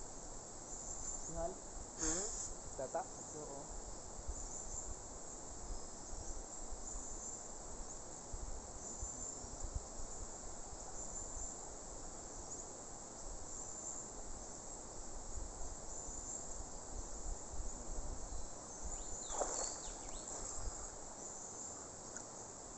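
Steady high-pitched insect chorus of crickets or cicadas, pulsing without a break. A short louder sound stands out about two seconds in, and another comes near the end.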